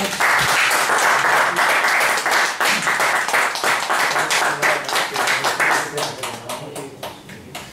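A small group of people clapping, which thins out and dies away near the end.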